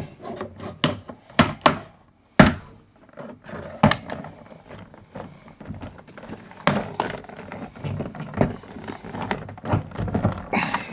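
A Jeep XJ's plastic interior door panel being worked off its push-pin clips: an irregular run of knocks and thunks, the loudest about one and a half and two and a half seconds in.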